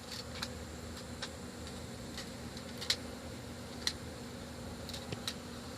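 A colony of honey bees buzzing in a steady hum, disturbed as their comb is cut out, with a handful of short sharp clicks scattered through.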